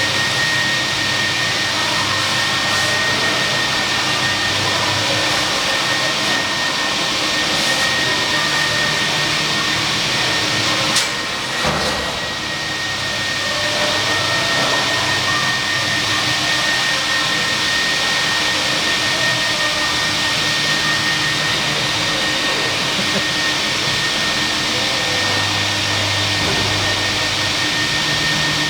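Industrial trolley washer running: a steady rush of spray and machine noise with a constant high whine. A single sharp knock comes about eleven seconds in.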